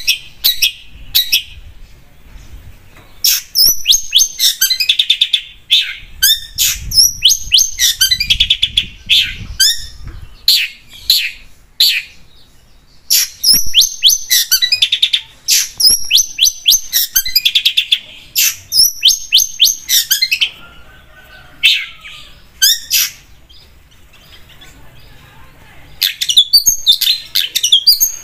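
Long-tailed shrike (cendet) singing loudly in fast runs of shrill, chattering, sweeping notes. It breaks off briefly twice, goes quieter for a few seconds past the middle, then bursts back into full song near the end.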